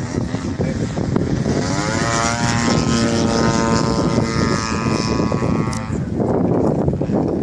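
Yak 54 aerobatic plane flying overhead: its engine and propeller note rises in pitch about two seconds in as the power comes up, holds steady, then drops away about six seconds in.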